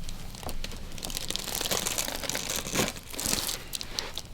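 Rustling and crinkling of a patient shifting on a chiropractic treatment table during an adjustment, with a few sharp clicks.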